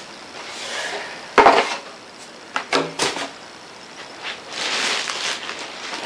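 Handling noise from a large steel-and-plastic PC tower case in its plastic bag: one loud knock about a second and a half in, a few lighter knocks about halfway through, and a rustle of plastic near the end.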